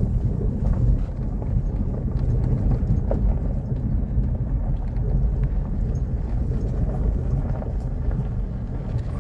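Vehicle travelling over a rough dirt track: a steady low rumble with faint knocks and rattles.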